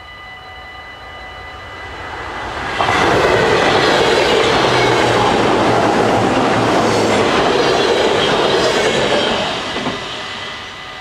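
Level crossing bells ringing as an NS ICM Koploper electric intercity train runs through the crossing. The loud rush of the passing train starts suddenly about three seconds in, holds for about six seconds and dies away near the end, drowning the bells while it lasts.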